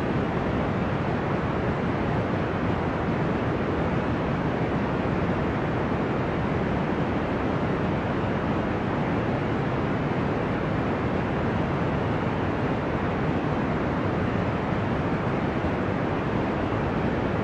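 Deep, ocean-like white noise: a steady, even rush weighted toward the low end, with no breaking waves or swells.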